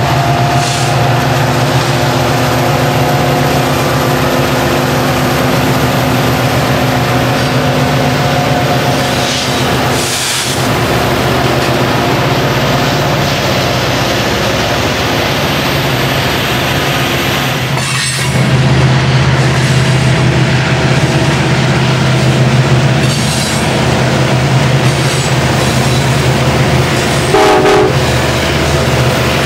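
Loaded coal train passing: a steady rumble and rattle of hopper cars rolling on the rails. From about two-thirds of the way in it grows louder as Montana Rail Link EMD SD45-family helper locomotives go by, their diesel engines running.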